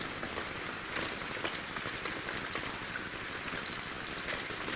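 Steady hiss of water with many small scattered ticks like drips, in a partly flooded tunnel.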